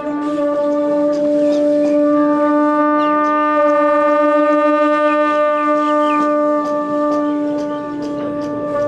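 Tibetan Buddhist conch-shell trumpets (dungkar) blown by monks, sounding one long, steady low note that wavers briefly about halfway.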